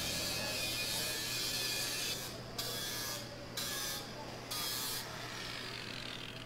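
Power grinder grinding a piece of metal, giving a gritty hiss in several passes with short breaks between them. It stops about five seconds in, leaving a steady low hum.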